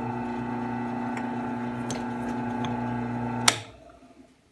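WEN 5-speed benchtop drill press motor running with a steady hum while the small bit works in a wooden block. About three and a half seconds in there is one sharp click as it is switched off, and the hum dies away quickly.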